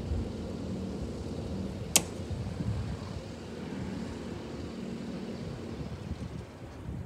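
Case SR270 skid steer's diesel engine running steadily in the distance, a low even hum that fades near the end, with a single sharp click about two seconds in.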